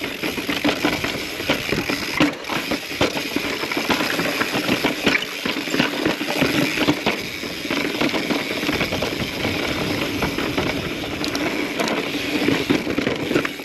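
Mountain bike rolling over rough sandstone rock and grit: tyres crunching, with a constant stream of rattling knocks and clicks from the bike as it jolts over the ledges.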